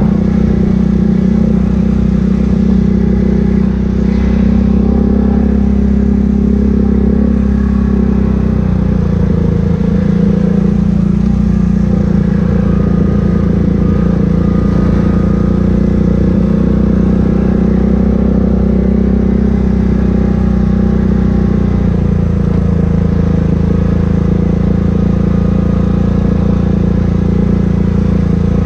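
ATV engine running steadily under way, heard from on board, with its pitch stepping down slightly about nine seconds in and again about twenty-two seconds in.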